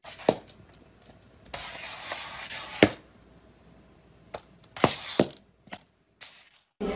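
A puppy's plastic cone collar scraping along a tiled floor and knocking against it: a scrape lasting over a second that ends in a sharp knock, then several more sharp knocks.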